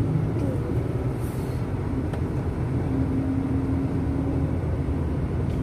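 Steady low rumble of a car driving, with a faint steady hum that comes in about three seconds in and drops out about a second and a half later.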